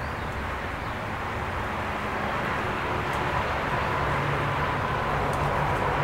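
Steady distant engine noise, a low hum and hiss with a faint steady tone, slowly growing louder over the second half.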